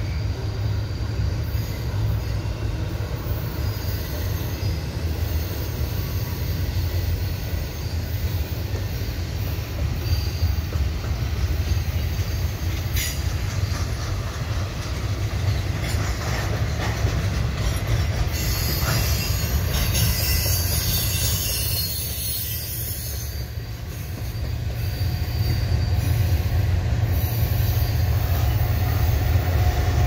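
Double-stack container train's well cars rolling past on a curve: a steady low rumble of wheels on rail, with high-pitched wheel flange squeal that is strongest around two-thirds of the way through. Near the end the rumble grows louder as the rear ES44DC diesel locomotive draws up.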